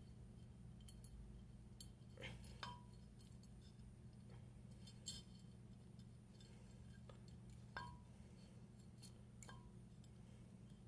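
Near silence over a low steady hum, broken by scattered faint clicks and light metallic clinks of small parts or tools being handled. Three of the clinks ring briefly.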